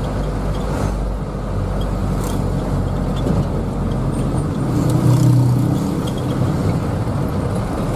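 Minibus engine running and road noise heard from inside the cab while driving, with the engine note growing louder about five seconds in.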